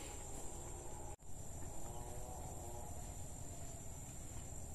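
Steady high-pitched drone of insects trilling in the surrounding vegetation, which cuts out for an instant about a second in.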